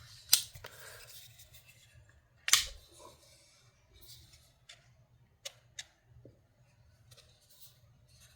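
Pro-Tech Magic 2 automatic knife being worked in the hand: two loud, sharp metallic snaps of the blade and lock about two seconds apart, then a few fainter clicks and handling rustle.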